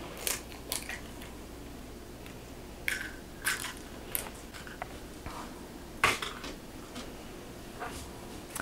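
Eggshells cracking as eggs are broken open by hand into a bowl: a handful of short, separate cracks and crunches, the sharpest about six seconds in.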